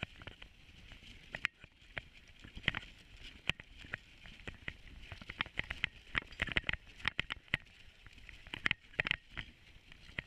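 Dog sled running over a snowy trail: a steady hiss from the runners with many irregular clicks and knocks from the sled and its gear, thickest in the second half.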